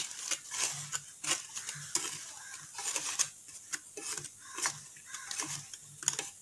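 Wooden spatula stirring and turning fried bread gulab jamun balls in sugar syrup in a pan, with repeated irregular scrapes and light taps against the pan.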